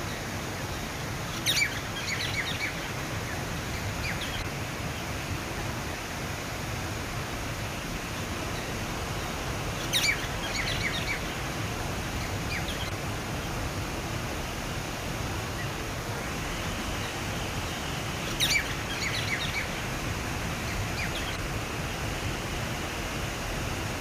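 Water spilling over a small concrete weir into a pond, a steady rushing splash. A bird calls three times, about eight seconds apart, each time a quick run of sharp high chirps lasting about a second.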